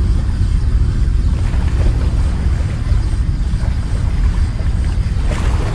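Wind buffeting the microphone at the seashore: a steady, heavy low rumble, with a short hiss about five seconds in.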